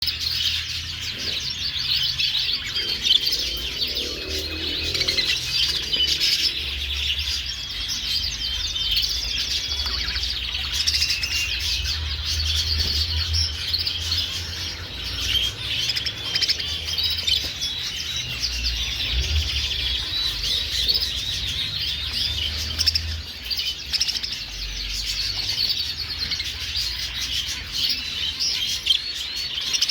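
A flock of English budgerigars chattering and chirping continuously, many quick overlapping calls at once, with a low rumble underneath.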